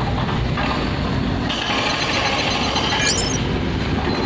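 Excavator engine running amid passing street traffic, a steady noisy rumble, with a brief high squeal about three seconds in.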